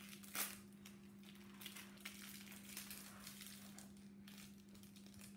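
Plastic wrapper of a small sealed toy packet crinkling and crackling as it is worked open by hand, with one sharp crackle about half a second in and smaller crackles after.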